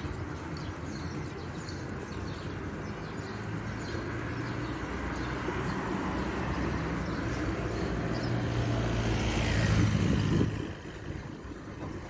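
A motor vehicle's engine running, growing louder as it comes closer and loudest about ten seconds in, then falling away suddenly.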